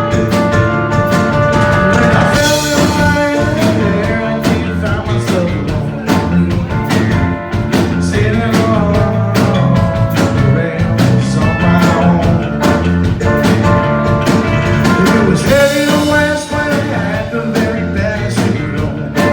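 A rock band playing live, with a drum kit keeping a steady beat under sustained instrument lines.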